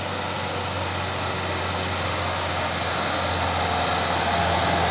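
Diesel engine of a Mitsubishi Fuso dump truck loaded with stone, running steadily under load as it pulls uphill, getting louder as it comes closer.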